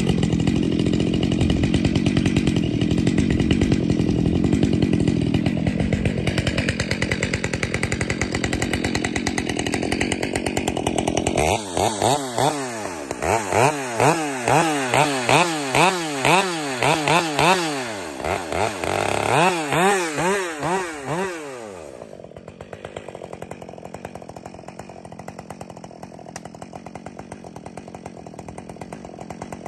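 Husqvarna 572XP two-stroke chainsaw idling after warm-up, then revved up and down in a long run of quick throttle blips with a short break, before settling back to a quieter idle.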